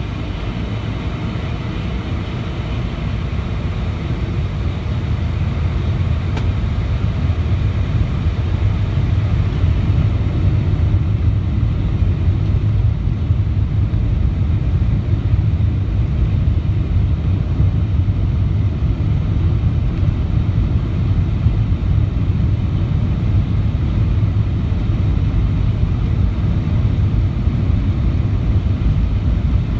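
Boeing 747-400 jet engines heard from inside the cabin over the wing: a steady low rumble that grows gradually louder as the jet taxis.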